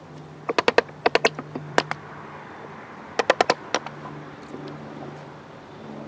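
Hammer striking a chisel to pare chainsaw-rough wood out of a hollowed wild cherry log: sharp taps in quick runs of about four, with a few single blows between, mostly in the first four seconds.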